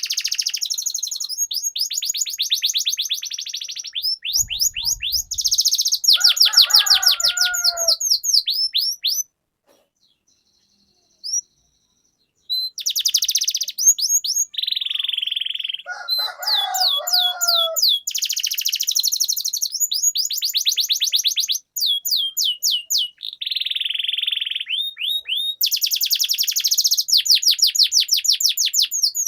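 Domestic canary singing long rolling trills: fast runs of rapidly repeated high notes, with lower warbled phrases in between. The song breaks off into silence for about three seconds near the middle, then resumes.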